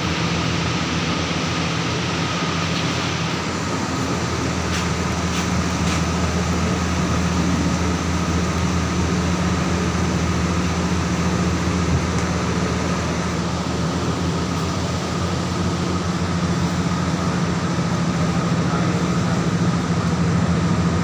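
Steady drone of electric fans running, a large wall-mounted circulator fan and ceiling fans, with a low electrical hum under it and a few faint clicks about five to six seconds in.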